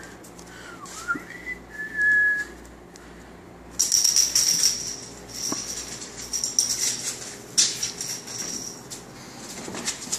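A person whistling to a cat: two short rising whistles and a held whistle note in the first couple of seconds. Then, from about four seconds in, a few seconds of scuffling and light rattling with a thin high ringing tone.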